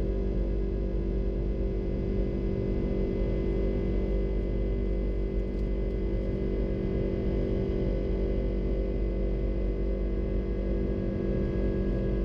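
Airbus A330-300 cabin noise at a window seat: the engines' steady drone, a constant hum with several fixed tones over a low rumble, unchanging throughout.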